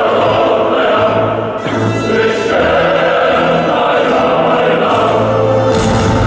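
Choral music: a choir singing held notes that change every second or so. Near the end a low rumble comes in under it.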